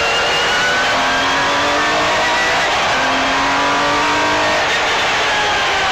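MG Metro 6R4 rally car's V6 engine heard from inside the cabin, accelerating hard: the pitch climbs, drops back at an upshift, climbs again, then falls as the driver eases off near the end.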